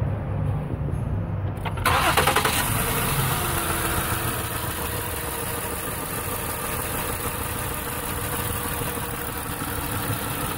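2008 Ford Taurus X's 3.5-litre V6 starting up about two seconds in and settling into a steady idle. It is running with cylinder 1 misfiring, its injector getting no pulse.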